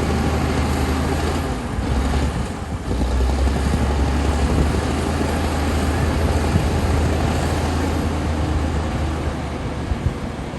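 Komatsu D60P bulldozer's diesel engine running steadily under load, with a deep hum and track and machine noise over it. The engine note drops briefly about two seconds in, then steadies again.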